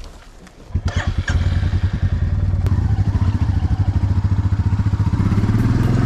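Royal Enfield Meteor 350's single-cylinder engine starting up under a second in, catching after a few strokes and settling into a steady, fast-pulsing idle.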